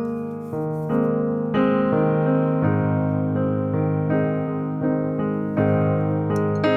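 Background piano music, with a new note or chord struck roughly every half second to a second.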